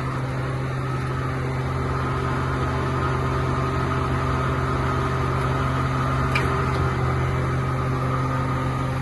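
Mercedes-Benz Actros truck's diesel engine running steadily with a low, even hum, with one faint click about six seconds in.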